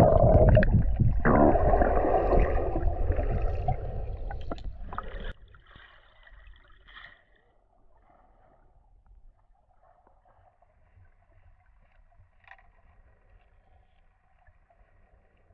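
Water splashing and bubbling right against the microphone as a snorkeler goes under, cutting off suddenly about five seconds in. After that, only a faint underwater hiss with a few light clicks.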